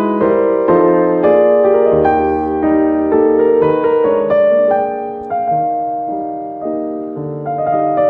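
Background piano music: a melody of notes struck one after another over a lower accompaniment.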